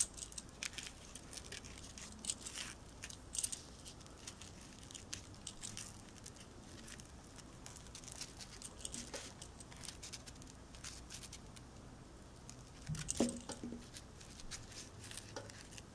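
Faint hand-crafting sounds: fabric and trim rustling as trim is wrapped around a fabric-covered handle ring. Scattered light clicks, like metal and glass bangles knocking together on the working wrists, run through it, with a brief low bump about thirteen seconds in.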